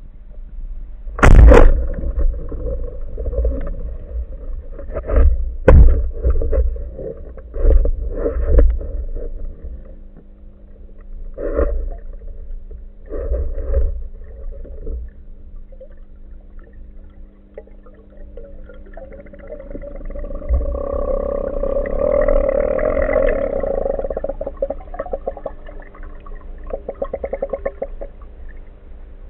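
Underwater sound picked up by a camera mounted on a speargun: sharp clicks and knocks from the gun and the diver's gear, the loudest a sharp crack about a second in, over a faint steady hum. Later a rush of water and bubble noise swells and fades as the diver rises toward the surface.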